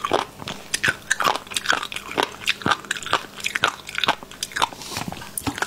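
Close-miked chewing: a mouthful being crunched, with crisp cracks and wet mouth clicks coming irregularly, several a second.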